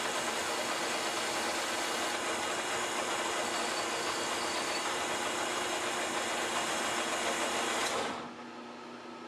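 Metal lathe spinning a metal pulley bushing while emery cloth and then a file are held against it, giving a steady hissing rasp over the machine's running hum. About eight seconds in the rubbing stops and the lathe runs on alone, noticeably quieter.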